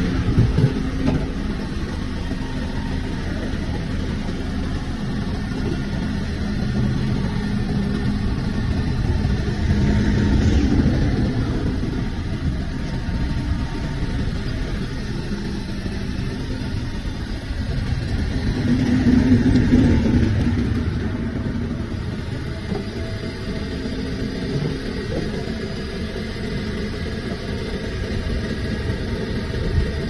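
Backhoe loader's diesel engine running while the backhoe arm digs, the engine working harder under hydraulic load twice: around ten seconds in and again around nineteen seconds in.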